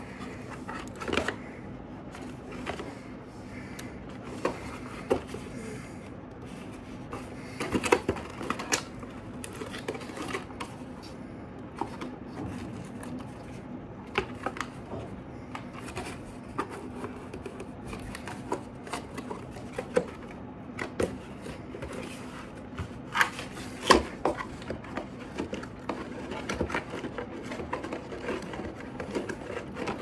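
Cardboard box and packaging being handled while a toy remote-control car is unboxed: irregular taps, knocks and scrapes, the sharpest about 8 and 24 seconds in, over a steady low hum.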